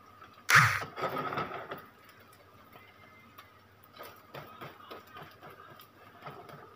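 A sharp clatter of kitchenware about half a second in. From about four seconds in, a black spatula scrapes and chops at cooked egg in a nonstick wok in a run of small clicking scrapes.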